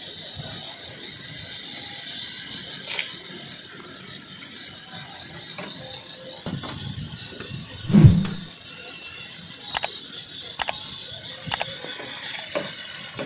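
Crickets chirping in a steady, fast-pulsing high trill, with a dull thump about eight seconds in.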